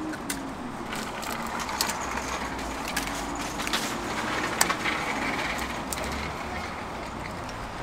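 Eggs being cracked on the rims of egg-bread moulds: a few short, sharp shell cracks and taps, the loudest about four and a half seconds in, over a steady background of outdoor street noise.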